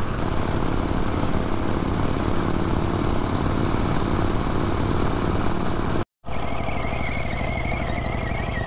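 1915 Jem JAP vintage motorcycle engine running steadily under way. A brief dropout about six seconds in, after which a faint wavering high whine joins the engine.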